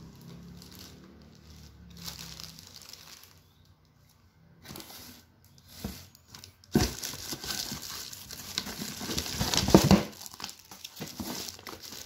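Clear plastic packaging bags crinkling and rustling as they are handled, in irregular bursts that are loudest from about 7 to 10 seconds in, with a couple of dull knocks.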